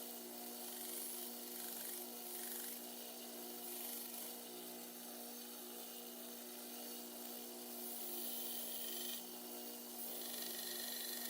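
Small electric sander running steadily, with the hiss of pocket-knife handle scales being sanded against it, swelling and easing in strokes every few seconds.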